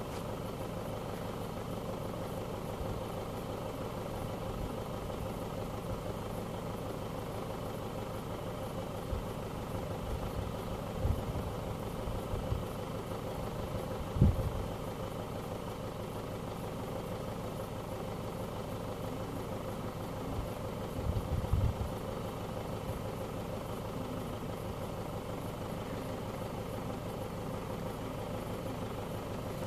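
An engine idling steadily, a constant even hum, with a few brief low thumps partway through.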